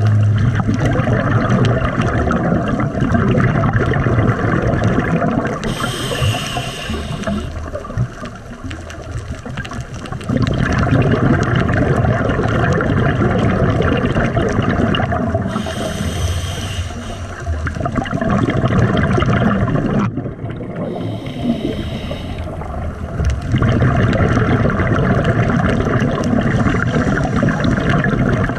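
Scuba diver breathing through a regulator underwater: long, loud rushes of exhaled bubbles, broken about every ten seconds by a shorter hissing inhalation.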